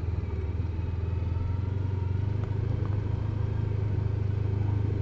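Honda Pan European ST1300's V4 engine running steadily while the motorcycle is ridden along at an even pace.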